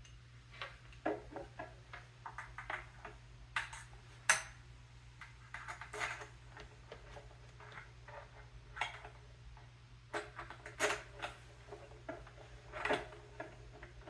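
Irregular clicks, taps and clinks of step stool parts and small hardware being handled and fitted together during assembly.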